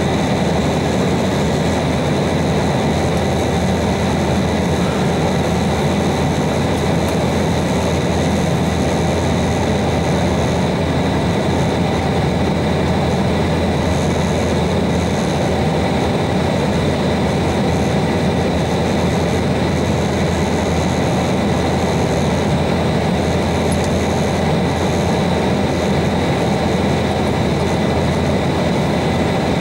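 Steady cabin noise inside an Embraer 190 airliner in flight: the hum of its GE CF34-10E turbofans and the rush of air over the fuselage, with a few high whining tones held steady throughout.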